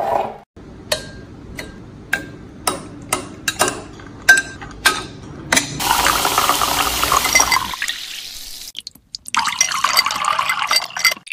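Ice cubes dropping one at a time into a tall glass, about ten sharp clinks. Then Sprite is poured over the ice with a steady splashing hiss, and after a short pause a second carbonated drink, a blue RIO, is poured in.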